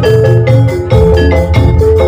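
Oklik ensemble playing campursari-style music: a quick melody of struck bamboo mallet-percussion notes over deep drum beats.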